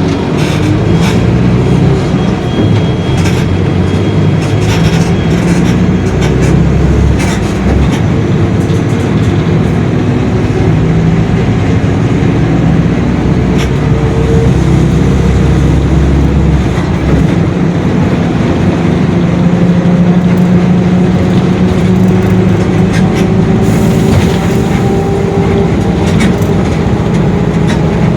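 Mercedes-Benz OF-1721 BlueTec 5 city bus running under way: diesel engine and driveline drone with the differential growling, amid clicks and rattles. The pitch climbs slowly over the last several seconds as it picks up speed.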